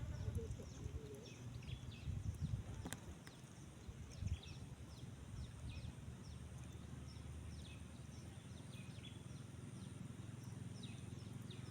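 Outdoor ambience: birds chirping in many short, downward-sliding calls over a low rumble, with a thin steady high tone throughout and a single sharp click about three seconds in.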